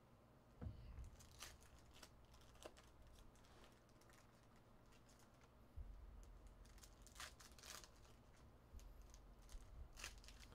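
Faint crinkling and rustling of foil trading-card packs and cards being handled, coming in short, scattered crinkles over near-silence.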